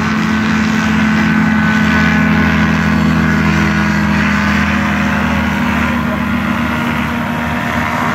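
Ultralight aircraft's engine and propeller at takeoff power, a steady, loud drone as the plane runs along the grass and lifts off.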